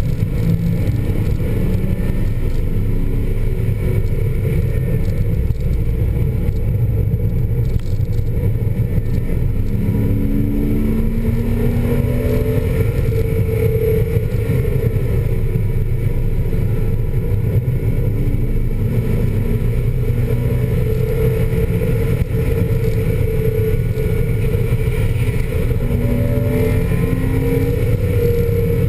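Porsche Boxster S flat-six engine heard from inside the cabin at track speed. Its pitch rises and falls repeatedly as it revs up and comes off the throttle, over a steady low rumble.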